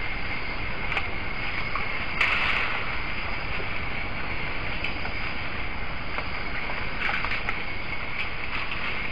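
Steady night insect chorus over the hiss of a trail camera's microphone. A brief rustle comes about two seconds in, and a few faint crackles near seven seconds, as forest elephants pull at and feed on vegetation.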